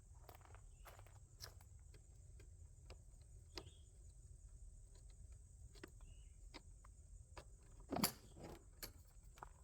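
Faint, irregular footsteps and rustling over a low rumble, with one louder thump about eight seconds in.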